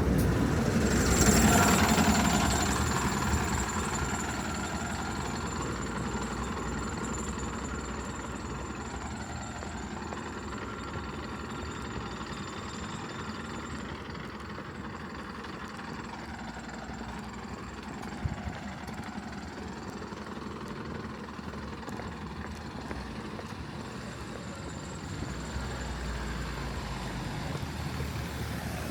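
A motor vehicle's engine, loudest as it comes close in the first few seconds, then running on as a steady low rumble.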